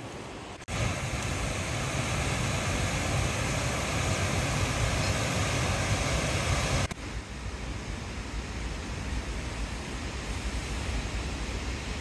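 Steady rushing roar of a waterfall plunging into a pool, cutting in suddenly about a second in. About seven seconds in it drops abruptly to a softer steady rush.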